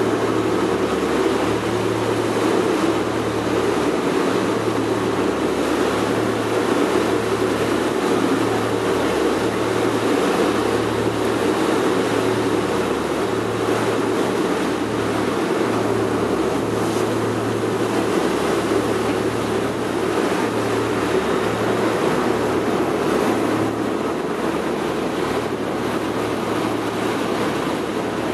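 Boat engine running steadily with a low hum that wavers in level, under the rush of water along the hull and some wind on the microphone.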